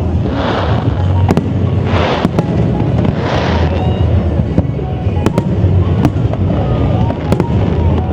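Fireworks going off: a scatter of sharp bangs over a heavy low rumble, with three hissing, crackling bursts about half a second, two seconds and three and a half seconds in.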